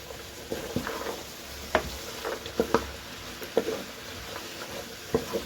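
Mixed vegetables frying in a pan with a faint sizzle while a cooking utensil stirs them, knocking and scraping against the pan at irregular moments.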